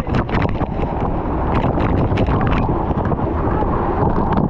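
Small waterfall's water rushing and splashing steadily, heavy in the low end, with wind buffeting the microphone.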